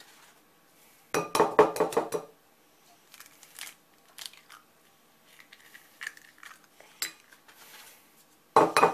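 Raw eggs tapped and cracked against the rim of a plastic mixing bowl: a quick cluster of sharp knocks about a second in and another near the end, with scattered lighter clicks in between as shells are pulled apart and handled.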